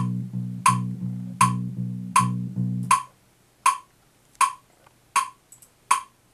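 Red Precision-style electric bass playing a steady run of repeated notes on one pitch over metronome clicks. The bass stops about three seconds in, and the metronome keeps ticking, one click every three-quarters of a second.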